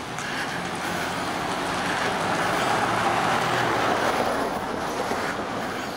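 Motor vehicle noise, a steady rumbling hum that swells to its loudest about three to four seconds in and then eases off.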